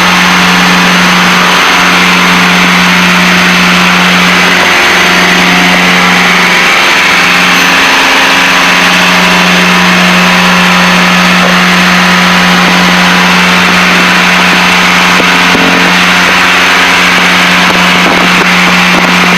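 Twin turbocharged piston engines and propellers of a Piper Seneca, a loud steady drone in the cockpit. A strong low hum wavers slightly a few times.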